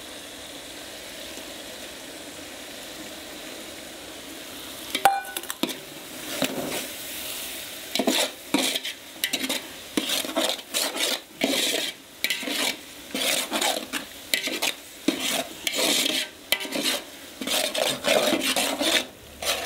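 Tomato, green chilli and coriander masala sizzling in a large metal pot. About five seconds in a metal clank, then a metal spatula scraping and stirring it in repeated strokes, about one a second, as the tomatoes are fried down until soft and mushy.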